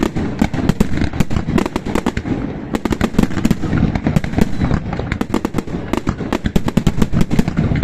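Fireworks going off: a dense, irregular crackle of sharp bangs and pops, many a second, over a low rumble.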